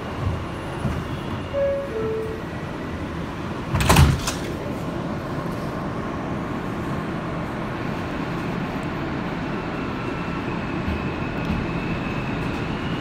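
Inside an R160B subway car: the two-note descending door chime sounds about a second and a half in. The sliding doors shut with a loud thud about four seconds in. Then the train starts off with steady running noise, and a faint high tone comes in near the end.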